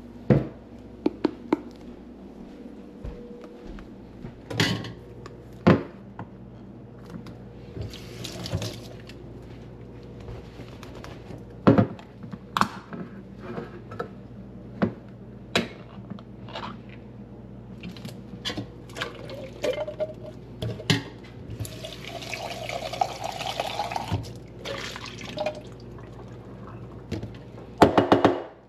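Kitchen work: scattered knocks and clatters, then a tap runs into a vessel for about three seconds, its pitch rising as it fills.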